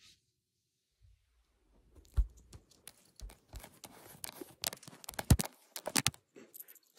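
Kitten nosing and pawing right at a phone's microphone: irregular scratchy rustles of fur and sharp knocks against the phone, starting about two seconds in, with the loudest knock near five seconds.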